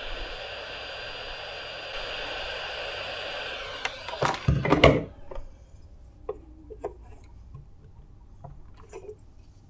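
Hot air gun blowing a steady hiss while heating a plastic gear, then a few loud knocks around four to five seconds in as the hiss cuts off. Faint clicks and taps follow.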